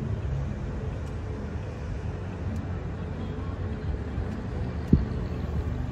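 Steady low vehicle rumble, with a single sharp knock about five seconds in.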